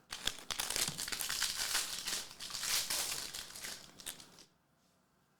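Foil wrapper of a trading-card pack crinkling, crackling as it is handled. It stops about four and a half seconds in.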